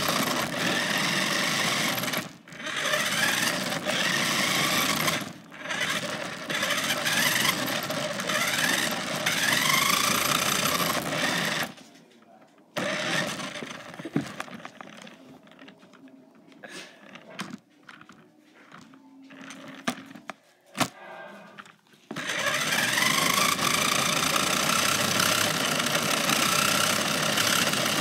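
A cheap toy RC car's electric motor and gears whirring as it drives over a hard floor, the pitch rising in short sweeps each time it speeds up. About twelve seconds in, the whirring stops for roughly ten seconds, leaving only scattered clicks and knocks, and then it starts again.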